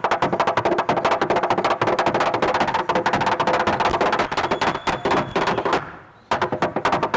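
Rapid tap dancing: metal-tipped tap shoes striking the floor in fast, dense rhythms, stopping briefly about six seconds in and then starting again.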